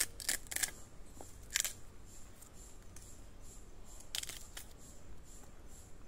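Knife cutting and peeling the sheath off a thin bamboo shoot: a few short, crisp cuts and scrapes, clustered in the first second, again about a second and a half in, and around four seconds in.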